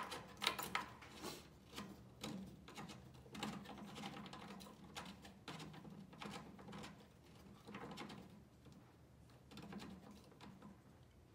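Faint, irregular small clicks and scrapes of a 6-pin remote connector's threaded collar being turned by hand, round after round, onto the socket of a Lincoln Square Wave 205 TIG welder.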